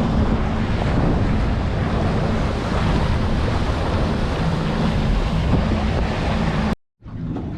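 Wind buffeting the microphone and water rushing past a small boat under way, with a low motor hum underneath. The sound cuts out briefly near the end.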